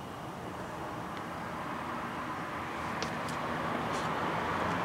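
Steady outdoor background noise with a low rumble, slowly growing a little louder, with a few faint clicks about three seconds in.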